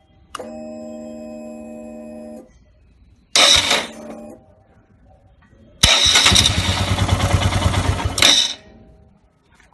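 Royal Enfield Himalayan being started: a steady hum for about two seconds, then the electric starter (self motor) cranking twice, one short burst and a longer pulsing one of about two and a half seconds, each cut off abruptly. The starter is the source of the bike's weird noise, which a mechanic later found and fixed.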